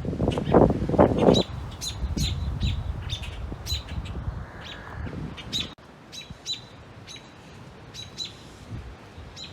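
American robins giving sharp, short chirps over and over, roughly one or two a second. A burst of low rumbling noise fills the first second or so.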